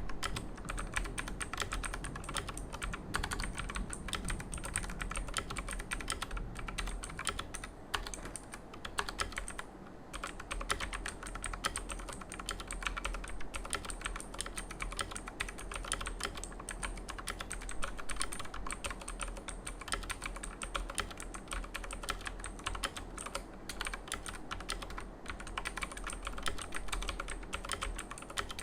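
Continuous fast typing on a mechanical keyboard with clicky Outemu Blue switches, a dense run of sharp key clicks with brief pauses now and then.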